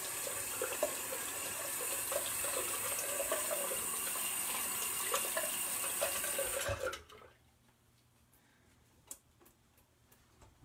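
Bathroom sink tap running, water splashing into the basin, then shut off abruptly about seven seconds in; a few faint clicks follow.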